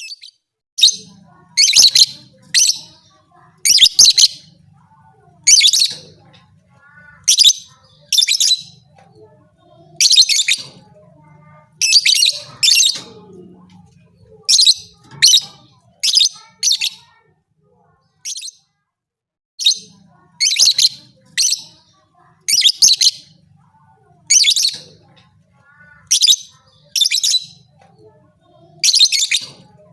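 Lovebird giving loud, shrill, short chirps over and over at irregular spacing, about one a second, some in quick pairs.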